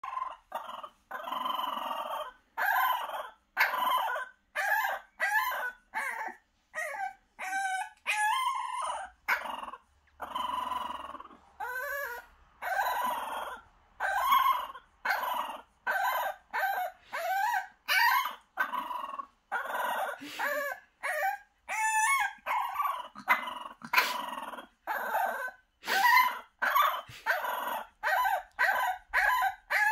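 French Bulldog puppy howling and yelping over and over: short pitched cries about once a second, with a few longer drawn-out howls among them. She is protesting at being shut in a box.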